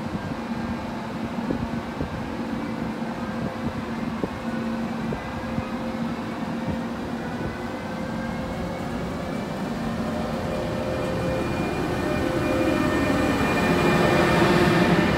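FS E402B electric locomotive pulling out of the station, its electric drive whining in a slowly rising pitch as it gathers speed. It grows louder as the locomotive passes close by, then the coaches roll past.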